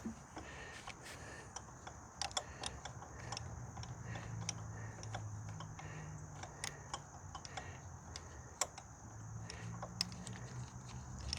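Scattered light clicks and metallic taps of a hand wrench and small bolts as the bolts holding a plastic chain guard are worked loose and taken out, over a faint low hum.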